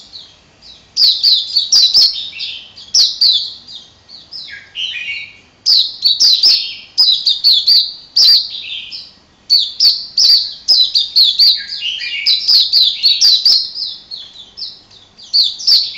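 Caged white-eye (mata puteh) singing: rapid, high twittering phrases of a second or two each, repeated again and again with short pauses between them.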